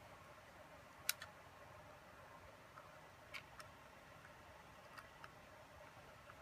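A few sharp clicks over near-silent room tone, mostly in close pairs, the loudest about a second in: small parts knocking together as a cover plate is fitted onto the back of a DJI Phantom 3 gimbal camera.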